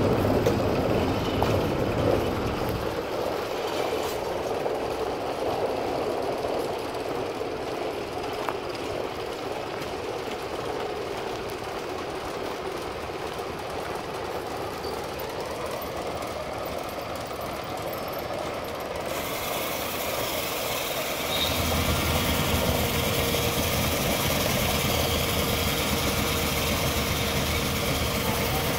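Steam-powered sawmill machinery running: the drive belts and cast pulleys turn with a steady mechanical rumble and clatter. It is louder at the start, thins out through the middle, and grows louder with more low rumble about three-quarters of the way through.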